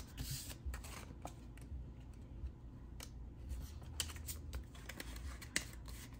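Paper bills and cash-envelope paperwork being handled: soft paper rustling with scattered light clicks and ticks, the sharpest about four and five and a half seconds in.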